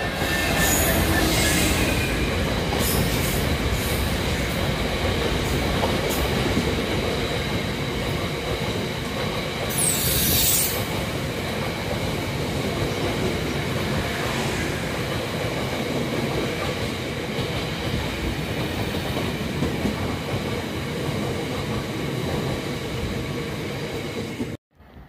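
Class 66 diesel freight locomotive passing close at the start, followed by a long rake of box wagons rumbling steadily past on the rails. There is a brief high wheel squeal about ten seconds in, and the sound cuts off abruptly near the end.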